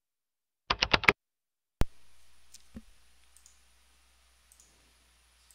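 A quick run of about five loud clicks, then a single sharp click about a second later, after which faint room hiss and hum come in and fade. A few soft, scattered clicks follow, typical of desk clicks at a computer.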